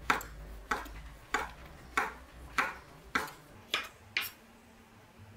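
Kitchen knife slicing through a shiitake mushroom and knocking on a wooden cutting board: eight crisp chops, about one every 0.6 s, stopping near the end.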